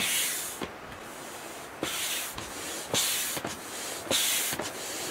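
Hand air pump pushing air through a hose into an inflatable kayak's chamber: a rhythm of short hissing rushes, about one stroke a second, with faint clicks between strokes.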